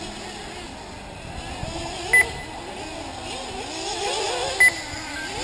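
Small nitro engines of 1/8-scale RC buggies whining on the track, their pitch rising and falling as they accelerate and back off. Short, high electronic beeps sound twice, about two seconds in and again near the end.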